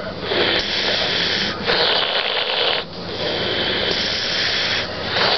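Heavy, hissing snoring from a congested sleeper, in long, harsh breaths about one to two seconds each with brief gaps between them. The sleeper is sick, and the snoring is far worse than usual.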